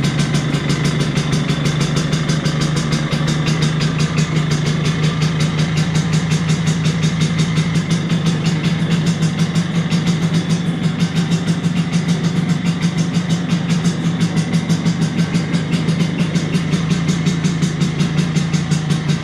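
1983 Vespa PX125E's single-cylinder two-stroke engine, freshly overhauled with a 177cc cylinder kit, idling steadily.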